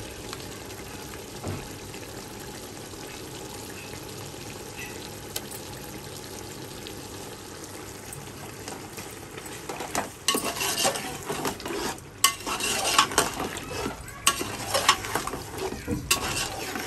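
Chicken pieces sizzling as they fry in spiced oil in a cooking pot. From about ten seconds in, a spoon stirs and scrapes them against the pot in loud, repeated strokes.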